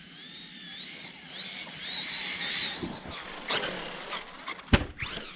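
Brushless electric motor of a 6S RC monster truck whining, its pitch rising and falling with the throttle. Near the end a single sharp thud as the truck comes down from a jump.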